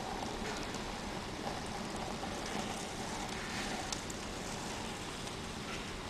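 Steady roadside ambience in stopped traffic: a low hum of idling vehicles under an even hiss.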